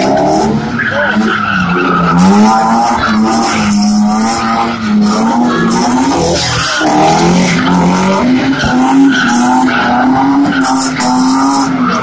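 Drift cars sliding around a roundabout together. Their engines are held at high revs, and the pitch wavers up and down as the throttle is worked, over the screech of tyres spinning and sliding sideways.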